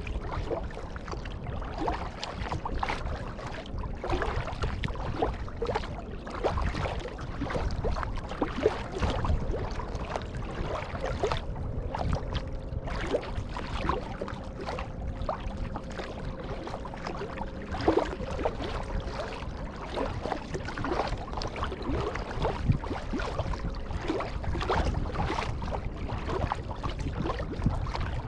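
Kayak paddling: water splashing and dripping off the paddle blades in many small, irregular splashes over a low steady rumble.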